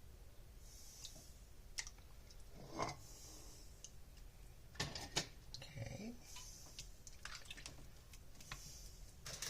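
Faint scattered clicks and a few light knocks of a serving utensil against dishes and food containers while cooked roast, vegetables and broth are spooned into portions.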